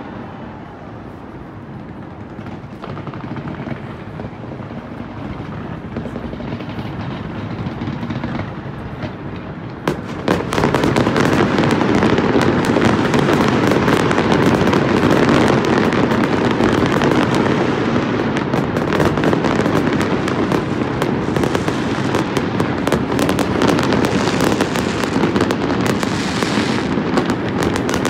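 Fireworks display: a steady spread of distant bursts, then about ten seconds in a sudden jump to a loud, dense barrage of crackling bangs that keeps going.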